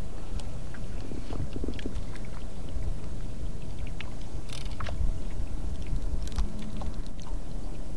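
A steady low rumble from the fishing boat, with scattered light clicks and plastic rustling as a fishing reel and rod are handled.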